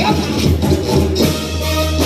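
Live brass band music played loud, with a steady deep bass line, held notes and percussion.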